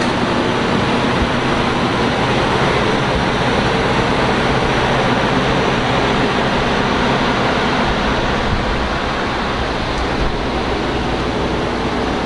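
Steady, loud rushing noise with a low hum underneath.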